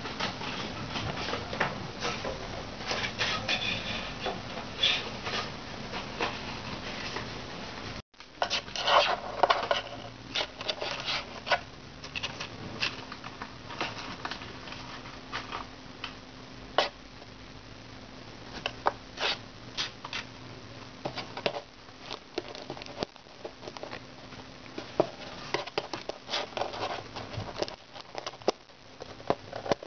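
Scottish Fold kitten's claws scratching and scrabbling at a cardboard box and carpet: an irregular run of sharp little scratches and clicks, with a brief break about eight seconds in.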